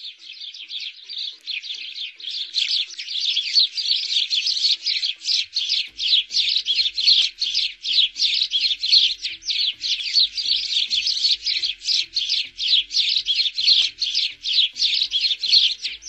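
Sparrows chirping in a fast, unbroken stream of overlapping chirps, several a second, growing louder over the first couple of seconds.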